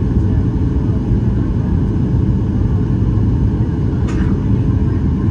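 Steady low rumble of a Boeing 737-800's engines and airflow, heard from inside the passenger cabin on the approach to landing. A brief sharp click sounds about four seconds in.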